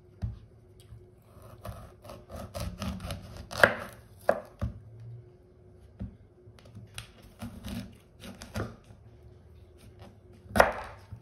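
Kitchen knife cutting raw quinces on a cutting board: crunchy cuts through the hard fruit and sharp knocks of the blade on the board, coming in two runs with a loud final knock near the end.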